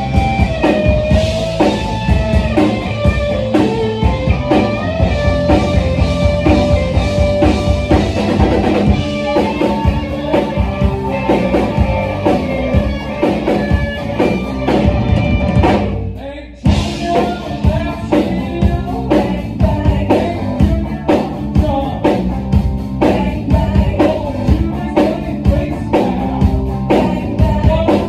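Live rock band playing: guitars over bass and drum kit, with a brief break about sixteen seconds in before the band comes back in.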